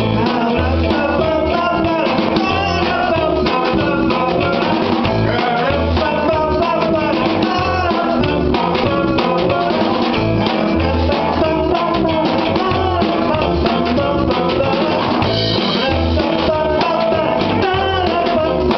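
Live band playing an upbeat song on guitar and drum kit, with singing over it.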